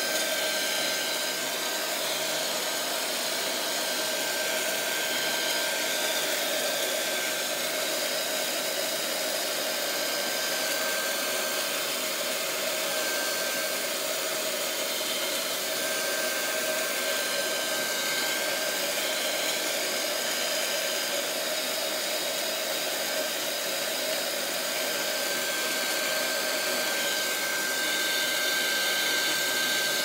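Handheld heat gun running steadily, its fan blowing a constant rush of air with a thin, steady high whine on top, as it heats the edges of an iPod Touch's screen to loosen it.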